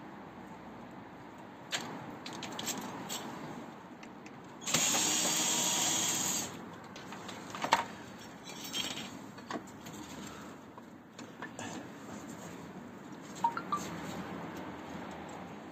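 Hand tools working on a scooter's rear wheel assembly, with scattered metallic clinks and knocks. A cordless drill runs for a little under two seconds in the middle, starting and stopping abruptly.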